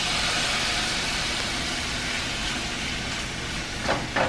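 Raw shrimp sizzling as they are tipped into a frying pan of hot avocado oil with frying garlic: a steady hiss that starts as they land and eases slightly. A spatula scrapes twice against the pan near the end.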